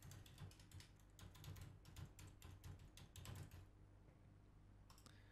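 Faint computer keyboard typing: a quick run of keystrokes for about three and a half seconds as an email address is typed, then a couple of single clicks near the end.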